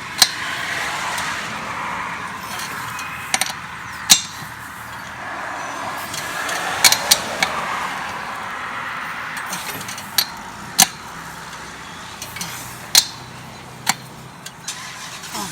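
Wrench tightening the lug nuts on a zero-turn mower wheel: about a dozen sharp metal clicks and clinks at irregular intervals. A steady rushing noise runs behind them, louder in the first half.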